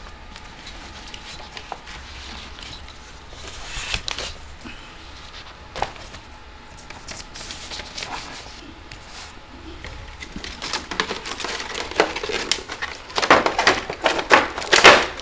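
Handling noise from a plastic headset and its cable being moved over a sheet of paper: scattered clicks and rustles, busier and louder in the last couple of seconds as the cable is pulled out.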